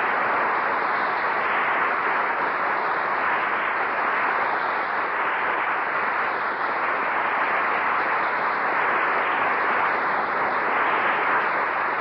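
Studio audience applauding steadily.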